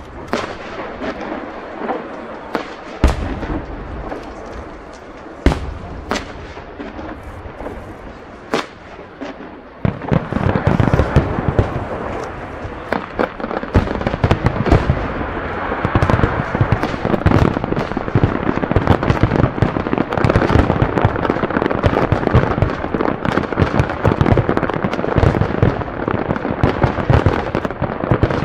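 Aerial fireworks: single shell bursts go off every two to three seconds, then about ten seconds in a dense barrage begins, many shells bursting at once in rapid, continuous bangs and crackling.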